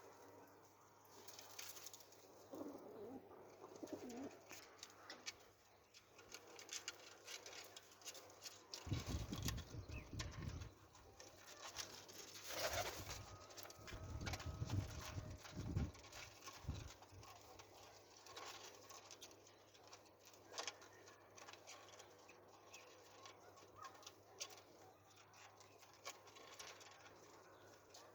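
Domestic pigeons cooing, with scattered small clicks and taps. Two stretches of low rumbling come and go about a third and half of the way through.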